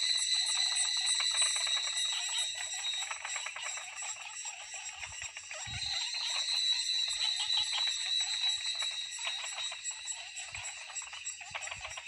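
Summer insect and frog chorus at a mountain pond: a steady high-pitched insect drone that fades a few seconds in and swells back about two seconds later, over dense rapid clicking calls.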